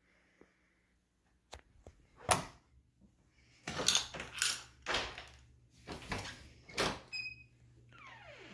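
A closet door being handled and opened: a brief metallic ring, then a short falling hinge creak near the end. Before it comes a run of knocks and brushing sounds.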